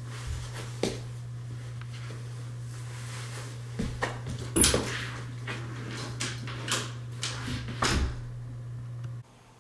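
Footsteps and knocks as someone pulls on sheepskin boots and steps about on a hard floor: a string of thumps, the loudest about four and a half seconds in. A steady low hum runs underneath and cuts off suddenly near the end.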